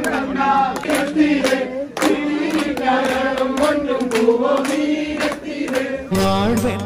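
A crowd singing a chant together, the voices holding and sliding long notes, with sharp hand claps and shouts breaking in. Near the end it cuts suddenly to recorded music over a steady low drone.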